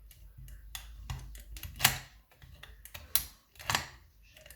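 Sharp clicks and knocks from hands handling a Securit lever-lock deadbolt and its key, the loudest about two seconds in, over a low handling rumble in the first half.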